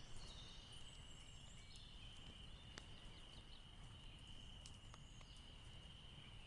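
Near silence: a faint steady high-pitched tone with a few faint ticks and short chirps over it.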